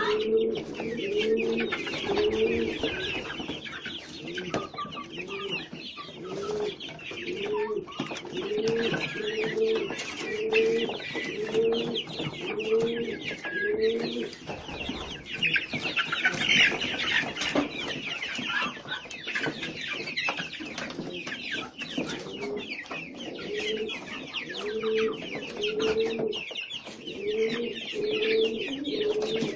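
Pigeons cooing over and over, about one coo a second, with a break in the middle, over a steady chatter of higher chirping from many small birds.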